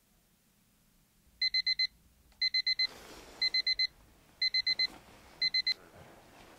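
Digital alarm clock beeping: quick bursts of four short high beeps, one burst a second, starting about a second and a half in. It cuts off partway through the fifth burst.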